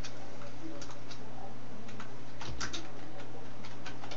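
Computer keyboard typing: irregular keystrokes, with a quick run of several keys about two and a half seconds in, over a steady low hum.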